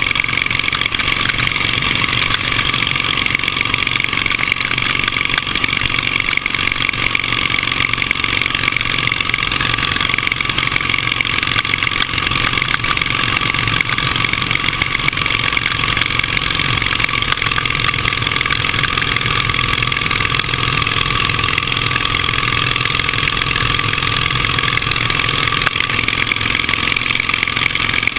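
1918 Indian racing motorcycle's engine running steadily at speed, heard from the handlebars with wind rushing past, and no let-up or gear change.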